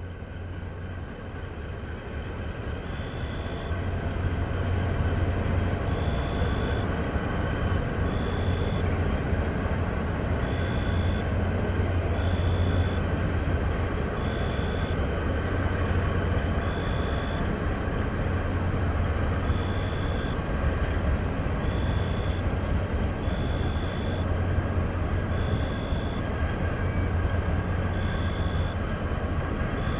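Low, steady rumble of a large container ship's engine and propeller as the ship moves close past the quay, growing louder over the first few seconds and then holding. Short high beeps repeat every second or two above it.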